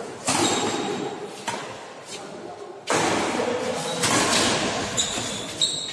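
Badminton rackets striking a shuttlecock in a rally, about four sharp hits a second or so apart, each ringing out in the hall's echo.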